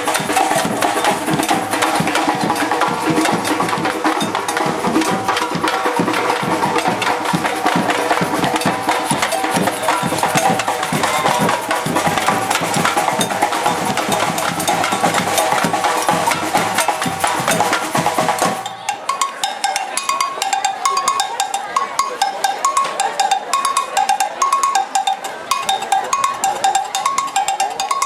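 A percussion group drumming together, with dense drum strokes and a low bass drum. About two-thirds of the way in, the drums drop out and a repeating high two-note pattern carries on over lighter percussion.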